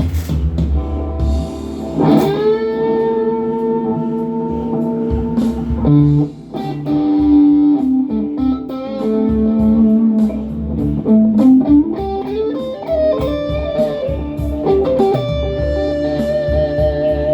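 Les Paul Hurricane electric guitar playing a slow, bluesy lead line through a pedalboard with delay and reverb: long sustained notes, a string bend about two seconds in, and notes sliding between pitches.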